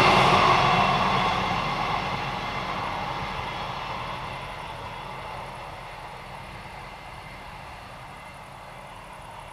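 BR 646 (Stadler GTW) diesel-electric railcar receding after passing a level crossing, its engine and running noise fading steadily and dropping slightly in pitch as it moves away.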